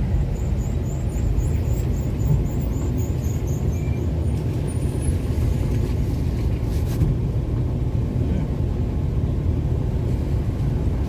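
Steady low rumble of a vehicle driving along a road, heard from inside the vehicle.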